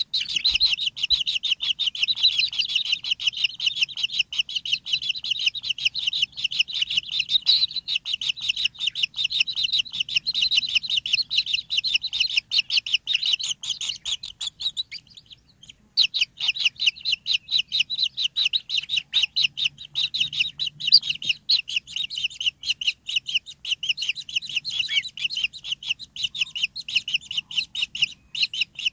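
White-throated kingfisher nestlings begging: a fast, steady string of short, high chirps, several a second, with a pause of a second or two about halfway through.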